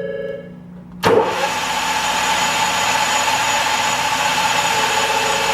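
A short beeping tone, then about a second in the Bridgeport Romi lathe's spindle starts and runs steadily at 900 RPM in gear range 3, a steady gear noise with a constant whine.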